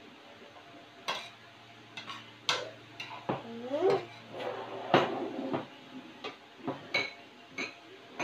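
Cutlery clinking and scraping against plates during a meal: about a dozen irregular sharp clicks and knocks, the loudest near the middle. A short rising squeak a little over three seconds in.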